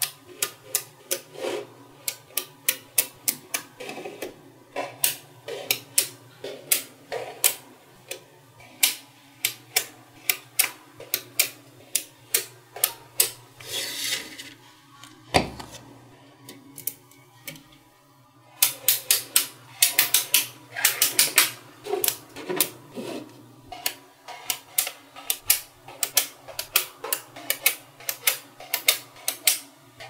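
Small magnet balls clicking as blocks of them are snapped onto one another: sharp, irregular clicks, several a second, coming thick and fast about two-thirds of the way through. One low thump about halfway.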